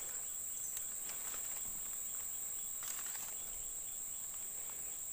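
Steady high-pitched drone of insects, one constant note. A few faint rustles and clicks come from hands handling a freshly caught fish, the clearest about three seconds in.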